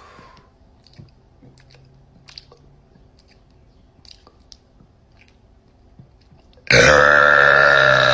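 A girl's loud, long burp that starts suddenly near the end, after several seconds of only faint clicks.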